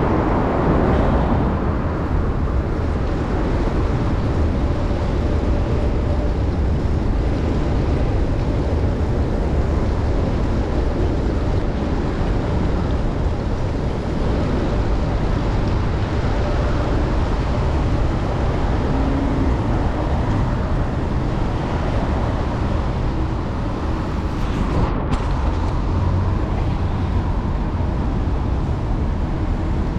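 Steady rush of road and traffic noise from a bicycle riding on wet city streets.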